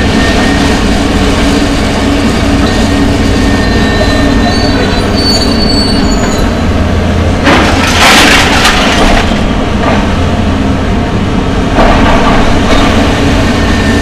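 Demolition excavators' diesel engines and hydraulics running steadily while they tear into a steel-framed building. Loud crashing and scraping of falling debris and metal comes about seven to nine seconds in, and again shorter near twelve seconds.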